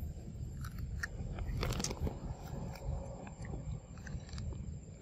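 A monkey biting and chewing an ear of corn, the kernels crunching in short crackles, loudest a little under two seconds in.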